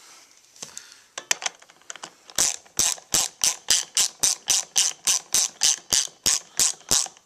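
Socket ratchet wrench clicking as it runs a bolt into a racing seat's reclining mechanism. A few scattered clicks come first, then from about two seconds in a steady run of about three to four clicks a second as the bolt is snugged up.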